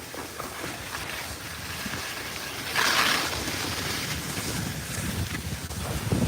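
Wind rushing over the microphone and skis hissing over snow on a fast downhill run, growing louder, with a stronger rush about three seconds in.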